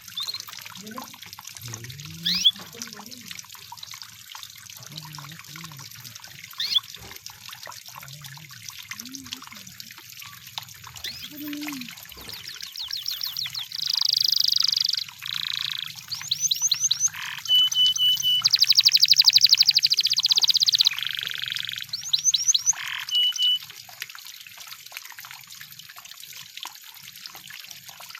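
Canary singing: a few faint chirps, then about halfway in a loud song of rapid trills and rolls with short held whistled notes, which stops a few seconds before the end.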